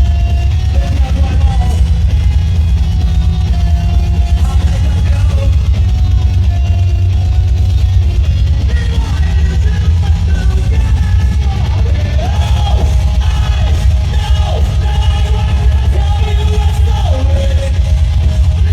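A live band playing loud rock music, a heavy steady bass under sung vocals.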